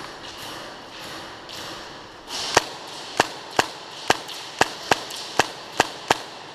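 Airsoft guns firing single shots: about nine sharp snaps, roughly two a second, starting a little over two seconds in, over a low rustling background.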